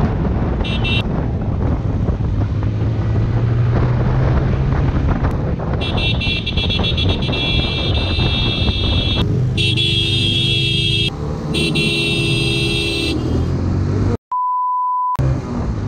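Motorcycle engine cruising steadily at road speed, with wind on the microphone. Vehicle horns sound in three long blasts through the middle. Near the end, a steady beep tone replaces all other sound for about a second.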